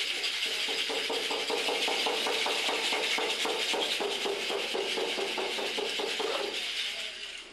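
Conch shell trumpet blown in a long, buzzing tone that pulses about six times a second, over a steady high hiss; it fades out near the end.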